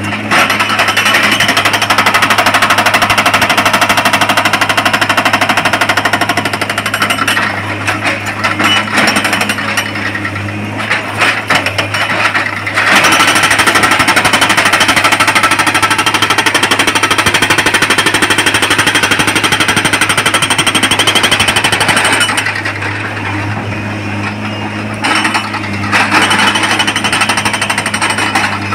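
Hydraulic rock breaker on a Tata Hitachi excavator hammering rock with rapid blows. The hammering comes in long loud runs broken by two quieter spells, over the steady hum of the excavator's diesel engine.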